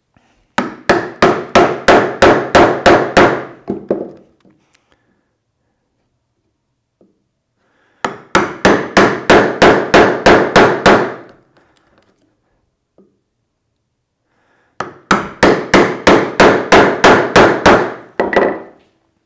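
Bevel-edge chisel struck with a mallet, chopping a mortise into laminated 2x4 softwood: three runs of about a dozen sharp knocks each, roughly five a second, with pauses of a few seconds between.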